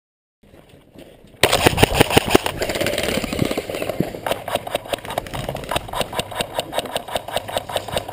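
Airsoft gun in rapid fire: a fast, even run of sharp clicks that starts abruptly about a second and a half in, after a brief silence.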